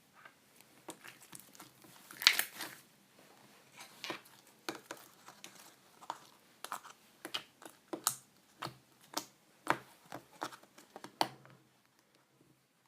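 Clear slime being squished and played with by hand: an irregular run of sticky clicks and small pops, with one longer crackle about two seconds in. The sounds stop about a second before the end.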